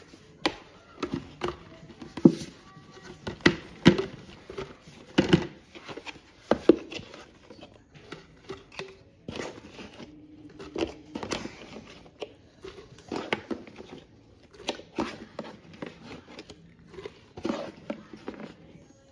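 Irregular clunks, taps and rustles of food containers and packaging being handled and set down, several a second at times and sparser in the middle.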